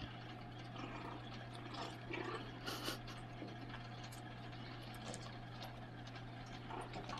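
Aquarium running with a steady low hum and water trickling, over faint scuffles and light taps of puppies playing on plywood, with a brief louder scrape about three seconds in.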